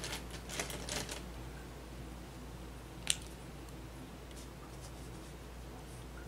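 Light rustles and clicks of a clear plastic pattern curve ruler and a pencil being handled on drafting paper. They cluster in the first second, with one sharp click about three seconds in and a few faint ticks after, over a steady low hum.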